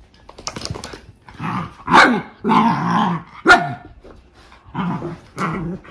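A Shiba Inu puppy and a basset hound at rough play, giving a run of play growls and several short barks, the sharpest about two and three and a half seconds in.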